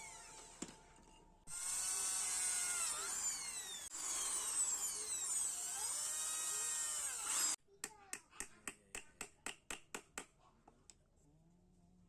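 Electric drill whining at high speed, its pitch sweeping up and down as the trigger is worked, then cutting off abruptly. A run of about a dozen quick, even clicks follows, roughly four a second, fading away.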